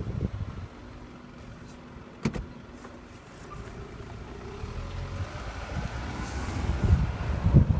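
A car making a single sharp pop about two seconds in, the popping it gives when the brakes are pressed at low speed. Road and engine noise then grow louder as the car moves off.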